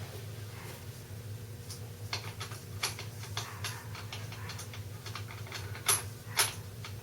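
Scattered light metallic clicks and clinks of a motorcycle drive chain and tools being handled, with a few louder clacks near the end.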